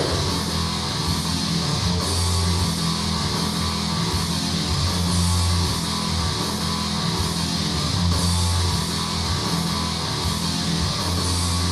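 Karaoke backing track of heavy rock playing on with no singing: distorted electric guitar riffing over bass and drums.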